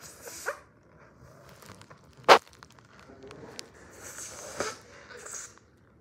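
Balloon noises: scattered soft hisses and clicks, with one loud, sharp snap about two seconds in.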